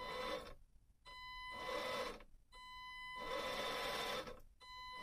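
Absima Sherpa RC rock crawler's electric motor and drivetrain running in four short throttle bursts, each with a steady high whine.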